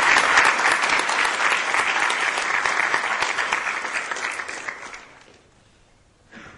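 Audience applauding, many hands clapping together; the clapping fades and dies away about five seconds in.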